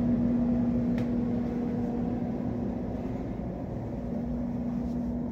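Steady machine hum with a constant low tone, easing slightly in level, and a faint click about a second in.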